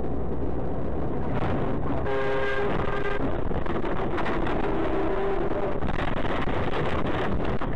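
Steady, loud driving rumble and tyre noise picked up by a dashcam inside a vehicle as it swerves off the road onto the grass verge. A pitched tone with several overtones sounds for about a second, two seconds in, and a fainter wavering tone follows a couple of seconds later.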